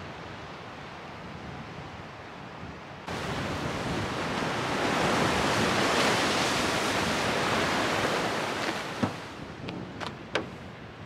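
Ocean waves washing up on a shore: a steady surf hiss that jumps louder about three seconds in, swells to a peak and dies back down. A few sharp clicks sound near the end.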